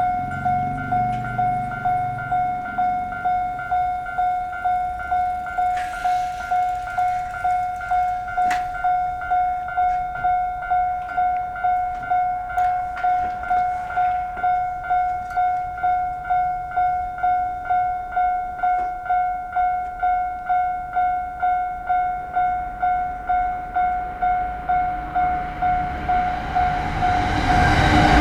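Japanese level-crossing alarm ringing a single electronic tone in an even, rapid ding-ding, warning of an approaching train. Over the last couple of seconds the rumble of the arriving train rises under it.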